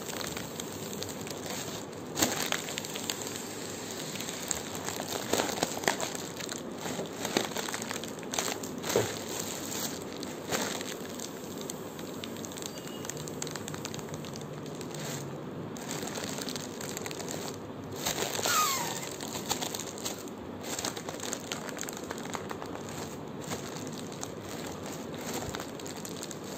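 Pink foil party balloon being pressed flat by hand, its film crinkling and crackling in scattered bursts, while air hisses out through a pen refill pushed into its valve.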